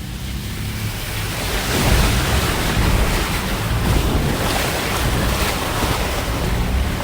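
Creek water splashing and rushing against a Toyota FJ Cruiser as it drives through, with the engine running low underneath. The splashing swells about two seconds in and stays loud.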